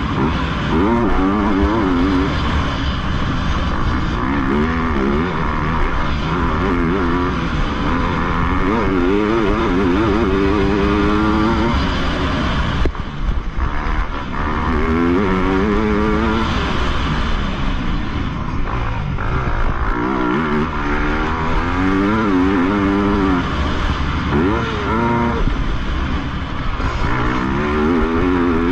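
Motocross bike engine revving up and down through the corners and straights, with wind rush on a helmet-mounted microphone; the throttle drops off briefly about thirteen seconds in.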